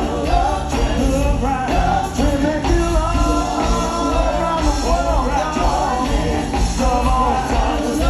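Live soul band playing an upbeat song, with singing over a steady bass and drums.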